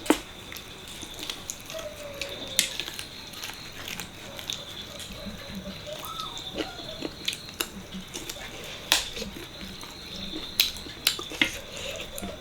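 Close-up eating sounds of mutton paya curry with rice: wet chewing and lip smacks with scattered sharp clicks, and a few short squeaky sucking sounds about halfway through. A faint steady high whine runs underneath.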